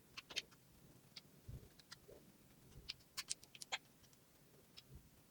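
Faint, scattered clicks and taps of tiny plastic toy pieces, Sylvanian Families miniature macarons and treats, being handled and set down, with a small cluster of clicks about three seconds in.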